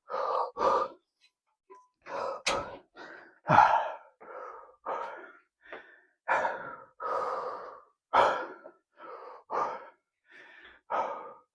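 A man breathing hard, with repeated heavy breaths in and out, panting to recover straight after a heavy set of barbell squats. A single sharp click comes about two and a half seconds in.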